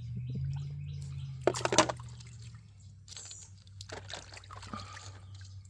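Water splashing and trickling as rocks are rinsed in a sifter, in short irregular splashes, the loudest about one and a half seconds in.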